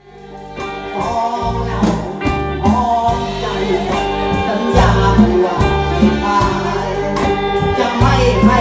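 A live Thai band playing a luk thung song, fading in over the first second, with a steady bass line under melodic lead lines.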